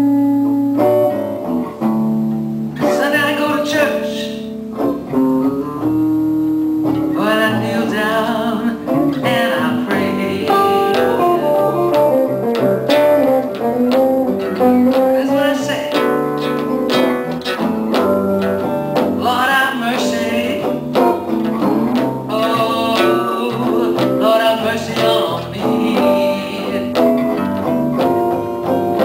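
Live blues band playing an instrumental passage of a slow blues: a guitar leads with bent, sliding notes over bass and rhythm guitar.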